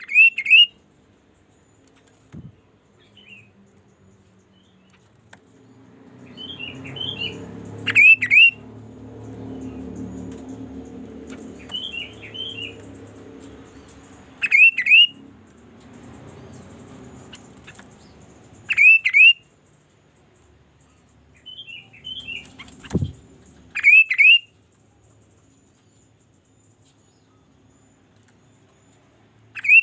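A chestnut-capped babbler (kaso-kaso) calling: loud, short, sharply sweeping whistles in quick pairs or threes, repeated every few seconds, with fainter calls between them. A low rumble runs under the calls for several seconds in the middle, and there is a single dull thump near the end.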